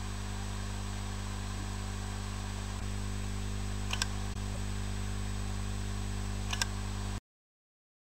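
Western Digital WD5000BEVT 2.5-inch laptop hard drive giving sharp clicks about four and six and a half seconds in, over a steady low hum. The owner takes the clicks for WD's normal protective head parking, not a bad-sector fault.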